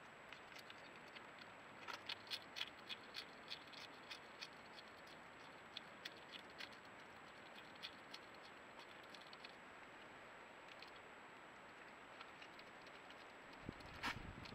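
European hedgehog chewing and crunching dry food pieces: a run of quick, crisp clicks, densest about two seconds in and sparser after that. There is a louder knock with a low thud near the end.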